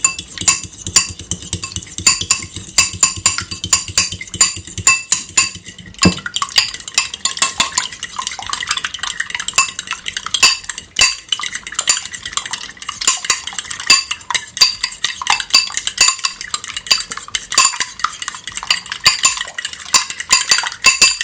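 Metal fork beating eggs in a ceramic bowl: rapid, continuous clinking and scraping of the fork against the bowl.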